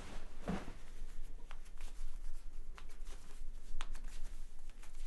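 Cotton shirt fabric rustling as fingers handle the buttons, with a few faint clicks scattered through.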